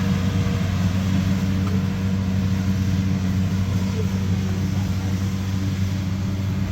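A vehicle engine running steadily at constant speed, a low even drone with no revving.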